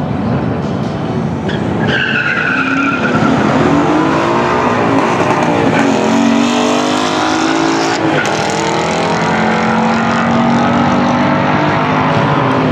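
Ford Mustang and BMW launching off the drag-strip line at full throttle, tyres squealing briefly about two seconds in. The engines then rev hard down the track, the note climbing and dropping back at each upshift.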